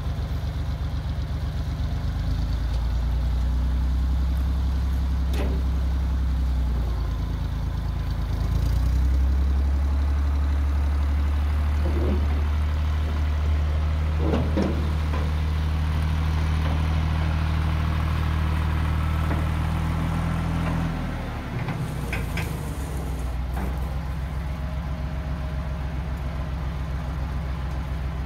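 Farm tractor engine running steadily under load while pulling a heavy cart, its speed stepping up about two seconds in and again about a third of the way through, then dropping back about three-quarters through. A few short clanks sound over it.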